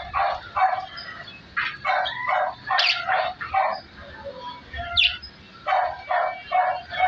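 Series of short, bark-like animal calls in quick runs of three or four, with a brief high chirp about five seconds in.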